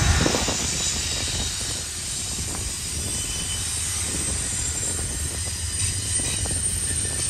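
Freight train cars rolling past: a steady rumble with thin, high wheel-squeal tones and faint clicking of wheels over the rails. A heavier low rumble fades about half a second in.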